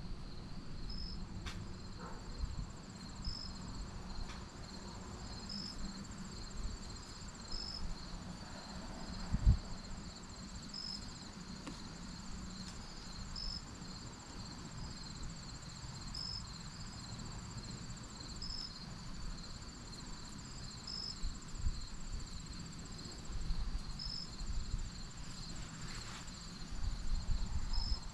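Evening insect chorus of crickets: a steady high trill with short chirps repeating every couple of seconds. Faint rustling and light knocks underneath, with one louder thump about nine seconds in.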